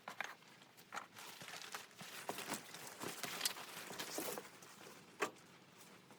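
Irregular soft knocks, crunches and rustling, with a sharper knock about three and a half seconds in and another just after five seconds.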